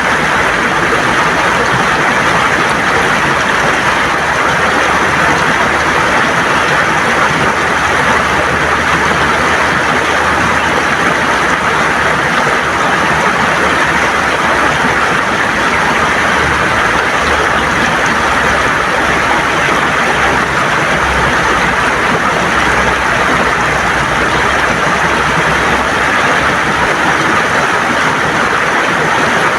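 River water gurgling and rushing over smooth stones, a steady, even flow.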